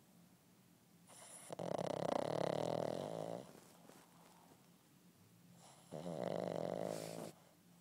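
Boston terrier puppy snoring in its sleep: two long snores, the first starting about a second in and the second near the end.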